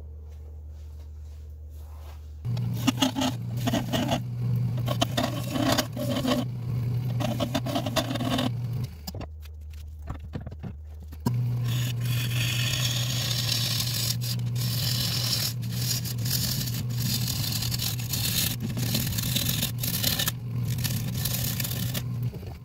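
Turning tool cutting the outside of a spinning acacia bowl blank on a Nova 3000 wood lathe: a loud scraping cut over the lathe's steady hum. The cut starts a couple of seconds in, stops for about two seconds in the middle, and then resumes.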